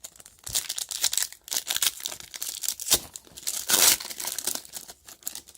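A hockey trading-card pack wrapper being crinkled and torn open, in a run of crackling bursts with the loudest rip near the end.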